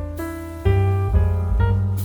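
Background music led by piano, with a new chord or note about every half second over a steady bass line.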